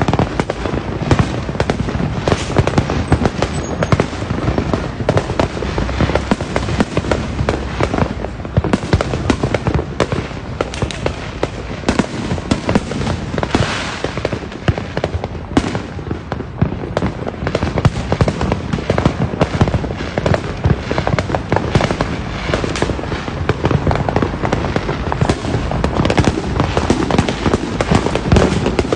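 Fireworks and firecrackers going off without pause: a dense crackle of many pops every second, mixed with louder bangs.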